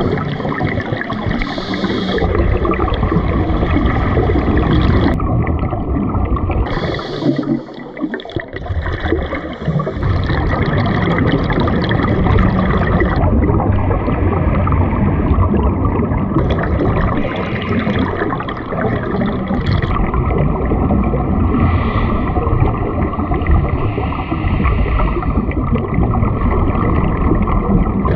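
Underwater sound of scuba regulators and exhaled bubbles: a continuous gurgling, bubbling rush.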